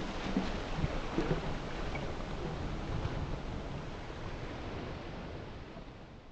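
Churning sea water washing steadily, with a few small splashes in the first second or so, fading out gradually over the last couple of seconds.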